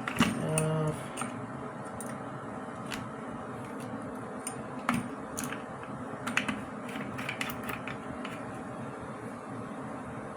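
Scattered light clicks and taps of shower-head hardware being handled, most likely the old shower head being worked loose and unscrewed from the shower arm. A short pitched squeak or hum sounds about half a second in.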